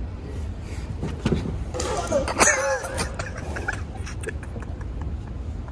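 Indistinct voices of people talking nearby, loudest about two seconds in, over a steady low hum, with a few light knocks.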